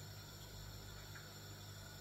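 Faint room tone: a steady low hum under a soft hiss, with a faint tick about a second in.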